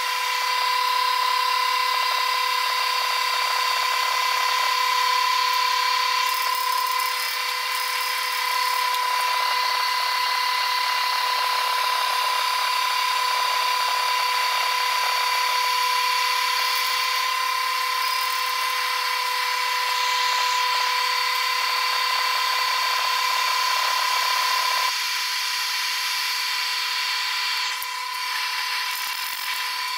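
Stick welding arc crackling and hissing steadily as a bead is run on carbon steel pipe, stopping about 25 seconds in. A steady high whine runs underneath throughout.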